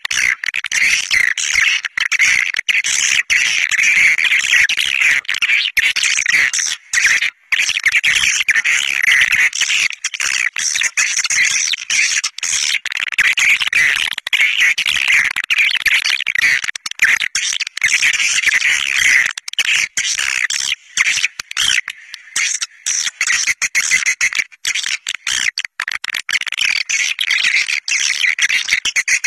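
A swiftlet flock's dense, continuous high twittering chirps, the kind of swiftlet-calling recording played to lure swiftlets to nest houses. The chatter breaks briefly about seven seconds in and thins for a few seconds after the twenty-second mark.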